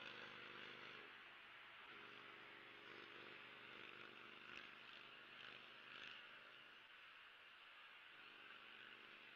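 Near silence: a faint steady outdoor hiss, with a faint low hum that comes and goes.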